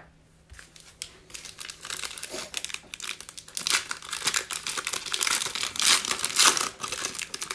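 Foil wrapper of a Panini Mosaic Fast Break basketball card pack being torn open and pulled apart by hand, crinkling and crackling. It starts lightly about a second in and gets louder and denser about halfway through.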